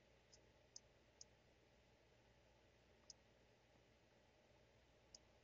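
Near silence with about five faint, irregularly spaced clicks of a computer mouse.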